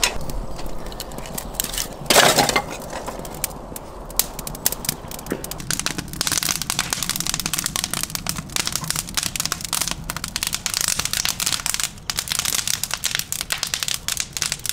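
Firewood burning up in a brick tandoor, crackling and popping. There is one louder crack about two seconds in, and the crackling grows denser from about six seconds.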